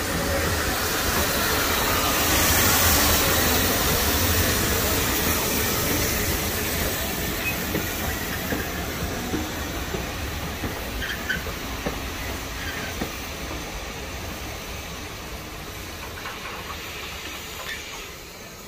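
Steam locomotive pulling away with a train, steam hissing loudly from around its wheels in the first few seconds. Then passenger coaches roll past on the rails, with a few light clicks and the sound slowly fading as the train moves off.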